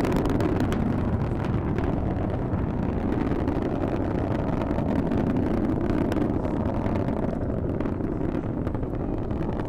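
Falcon 9 rocket engines during ascent: a steady, loud rumble with a crackle running through it.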